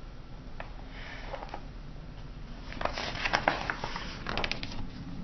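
Hardcover picture book being handled and its page turned: a cluster of paper rustles and crisp clicks from about three seconds in, after a soft sniff or breath near the start.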